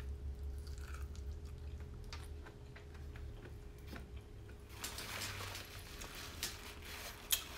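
Close-miked chewing and wet mouth sounds of a person eating, with scattered small clicks, a denser stretch about five seconds in and one sharp click near the end, over a low steady hum.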